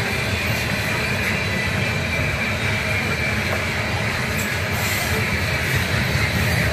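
Steel wheels of a coal train's open-top hopper cars rolling steadily past on the rails, a continuous low rumble with a faint high whine over it.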